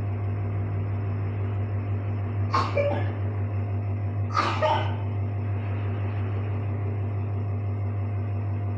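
Two hard coughs about two seconds apart, over the steady hum of a nebulizer's compressor running during a steam treatment for the cough.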